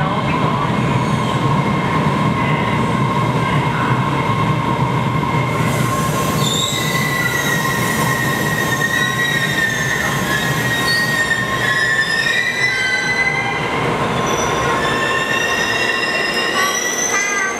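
Bombardier-built MBTA Red Line subway train arriving at a platform. The cars rumble past with a steady whine, then from about six seconds in a high, wavering squeal sets in as the train slows to a stop.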